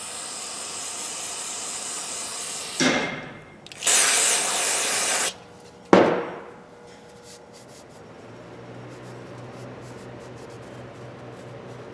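Hissing spray on a tool being cleaned: a steady hiss, then a sharp knock, a louder burst of hiss lasting about a second and a half, and another sharp knock. From about eight seconds in a low steady hum sets in.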